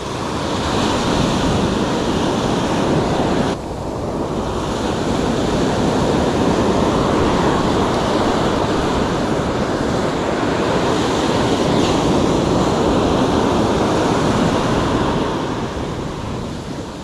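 Small waves breaking and washing up a sand beach, a steady rush of surf, with wind buffeting the microphone. There is a brief dip in the noise about three and a half seconds in.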